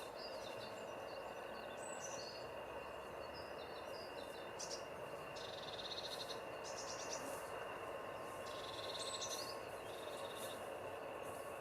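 Birds singing outdoors: short, high phrases, some of them trills, come and go over a steady background of ambient noise.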